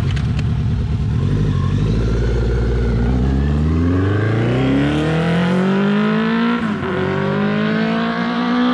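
2006 Kawasaki Z1000's inline-four engine pulling away and accelerating, its pitch rising steadily, dropping once at a gear change near the end, then rising again.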